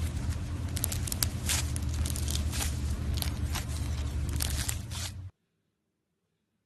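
Slime being squeezed and stretched by hand, with dense crackling and popping. The sound cuts off abruptly about five seconds in.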